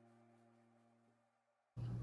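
Background music fading out to silence; near the end, bench room sound cuts in suddenly with a steady low hum.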